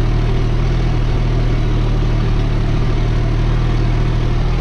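New Holland TT4.65 tractor's diesel engine running steadily under load while pulling a mounted plough through the soil, heard from inside the cab.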